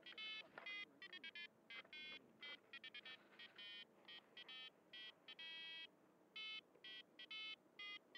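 Faint electronic beeping from a Vortex 285 FPV quadcopter sitting on the ground: short, pure tones in an irregular sequence of different pitches and lengths, some clipped and some held for about half a second.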